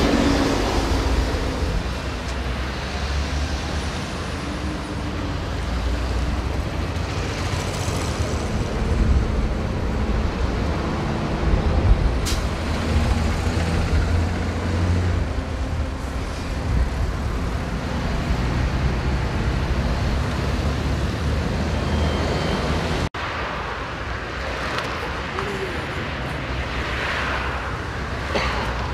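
Steady road traffic passing on a busy multi-lane avenue: a continuous low rumble of cars and heavier vehicles that swells and fades as they go by, with a brief dropout about two-thirds of the way through.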